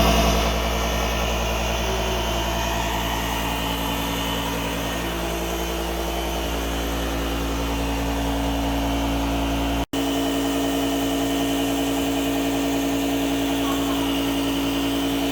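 A portable electric air compressor runs steadily as it inflates the freshly plugged tyre, a constant motor hum with a drone, cut off for an instant about ten seconds in.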